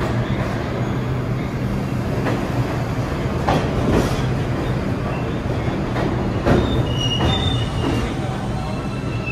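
New York City subway train running through the station, a steady rumble with knocks of the wheels over the rails, and brief high-pitched wheel squeals near the end.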